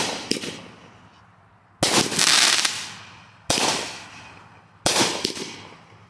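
Aerial fireworks cake firing shot after shot. Sharp bursts come about every one and a half seconds, each followed by a fading echo. The burst about two seconds in trails a long crackle.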